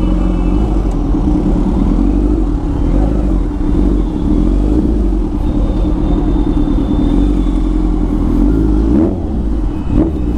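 Motorcycle engine running steadily while riding, with a rise in pitch about nine seconds in as the throttle opens.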